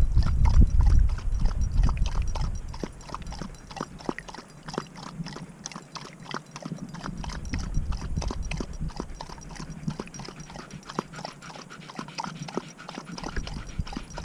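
Dog lapping water from a bowl: quick, rhythmic laps, about four a second, with a low rumble in the first two seconds and again near the end.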